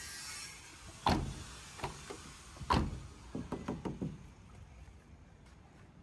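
A cab door of a 2005 Daihatsu Espass pickup being shut firmly twice, about a second and a half apart. Lighter clicks and taps on the door follow.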